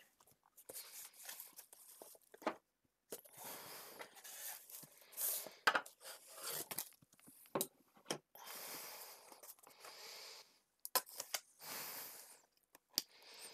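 Packing tape being cut and torn open on a cardboard shipping box: rasping tears and scraping against the cardboard in irregular stretches, with several sharp clicks and knocks.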